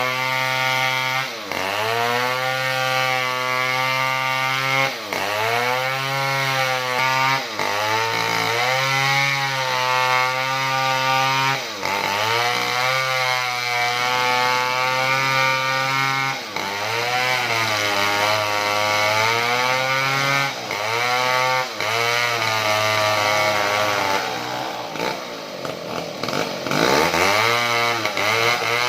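Small two-stroke chainsaw running at high revs while ripping lengthwise through wood, its engine pitch sagging under the cut and recovering every few seconds. Near the end the engine drops lower for a couple of seconds, then revs back up.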